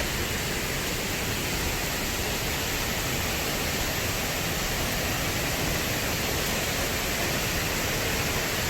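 Valley stream running: a steady, even rush of water.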